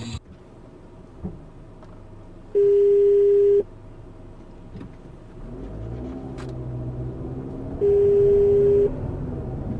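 Two loud, steady beeps at one pitch, each about a second long, the second near the end. Between them a car engine runs low and rises a little.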